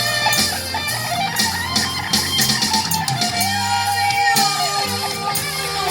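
Music with guitar: a song's instrumental accompaniment with a sustained, gliding melodic line over a steady bass.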